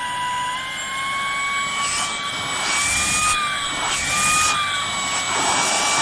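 TC1 Pro cordless stick vacuum's motor running with a steady high whine; the pitch steps up slightly about half a second in, then shifts a little, with a few brief rushes of air.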